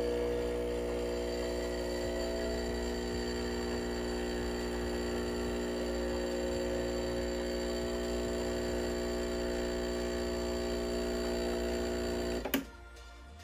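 Breville Barista Express espresso machine's vibratory pump buzzing steadily while it pulls a shot, then cutting off abruptly near the end when the shot is stopped at the button.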